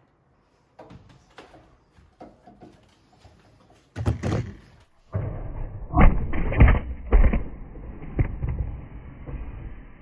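Scattered knocks and clatter of objects being handled. Partway through, this gives way to a louder run of heavy thumps and thuds.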